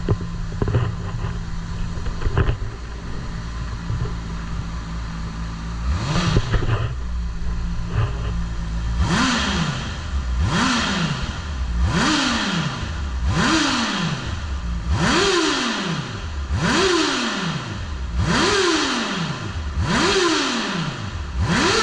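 Honda CBR600RR inline-four on its stock exhaust, idling steadily, then blipped once, then revved in quick regular blips about every one and a half seconds, each rising sharply and falling back to idle, climbing a little higher toward the end.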